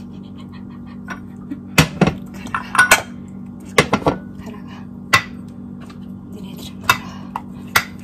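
Dishes and cutlery clinking and knocking: about a dozen sharp clacks at irregular intervals, some in quick pairs, over a steady low hum.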